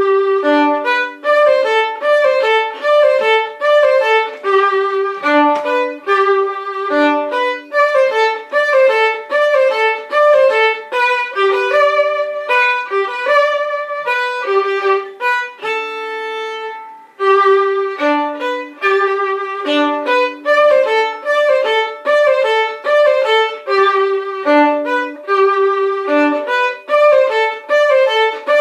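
Solo violin playing a tune in quick, separate bowed notes, with one long held note about sixteen seconds in and a brief break just after it.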